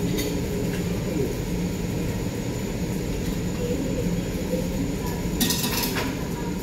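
Metal spatulas clinking and scraping on a teppanyaki griddle: a couple of clinks in the first second and a quick run of clinks about five and a half seconds in, over a steady low rumble.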